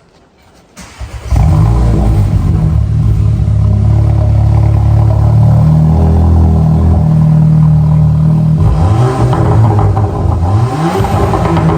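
Mk7.5 VW Golf GTI's turbocharged 2.0-litre four-cylinder starting up about a second in and running loud and steady through an exhaust with the backbox and GPF deleted. Near the end it is revved several times, the pitch rising and falling with each blip.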